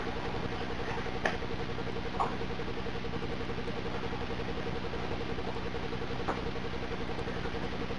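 A steady mechanical hum with a fast, even pulsing buzz, and a few faint short clicks about one, two and six seconds in.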